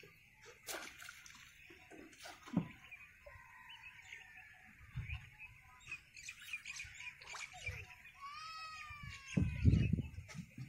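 Small birds chirping steadily, with a longer, curving call near the end and a few faint clicks. A louder low bump comes near the end.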